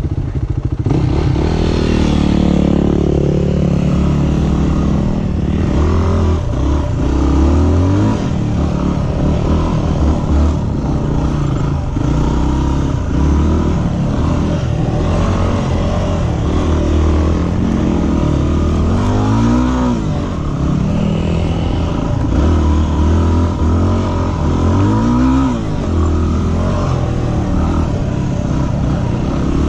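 Yamaha WR250R's single-cylinder four-stroke engine pulling away about a second in, then riding dirt singletrack with its revs rising and falling again and again.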